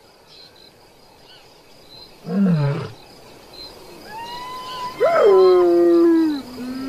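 A lone young lion gives a short, low moaning call about two and a half seconds in. Then hyenas whoop: long, clear calls that slide down in pitch, the loudest one starting about five seconds in and held for over a second.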